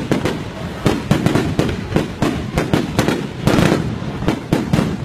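Aerial fireworks bursting overhead in quick, irregular succession: a dense string of bangs and crackling from the exploding shells.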